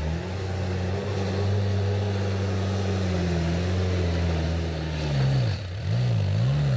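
Diesel engine of a light dump truck labouring steadily up a steep loose dirt slope; about five seconds in, the revs drop and pick up again twice.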